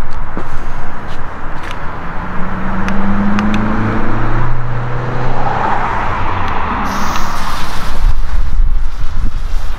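Wind rumbling on the microphone and an engine hum for a few seconds, then about seven seconds in a small Category 1 fountain firework, set off electrically by the remote firing system, lights with a sudden hiss that keeps going.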